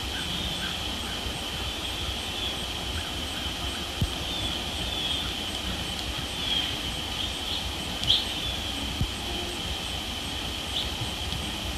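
Steady, high-pitched insect chorus from an evening pond edge, with a few brief clicks, the sharpest about eight seconds in, over a low rumble.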